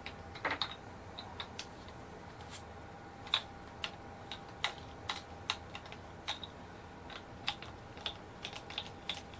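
Scattered light clicks and ticks, irregular at about one or two a second, of a string winder turning a guitar's tuning machines to slacken the strings.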